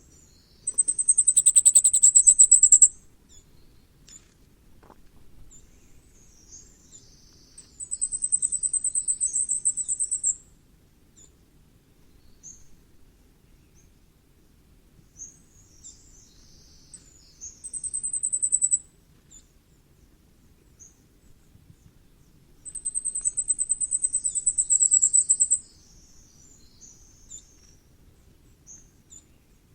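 Common firecrest singing: four very high, thin songs, each a rapid run of repeated notes lasting one to three seconds, with faint high calls between them. The first song, near the start, is the loudest.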